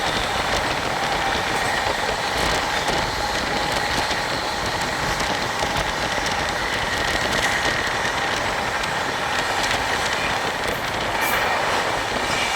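A train running on the track: a steady rumble and rail noise with some wheel clatter and a faint steady whine.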